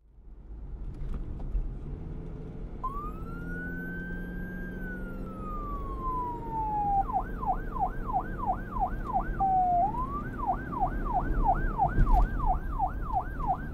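Siren: a single tone rises, holds and falls slowly in a wail, then switches to a fast yelp, sweeping up and down about three times a second, over a steady low rumble. A sharp knock sounds about twelve seconds in.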